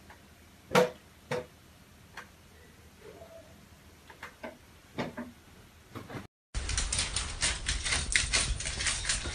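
A few separate soft knocks and clicks, then, after a brief drop-out, a much louder dense run of rapid, irregular clicking and tapping.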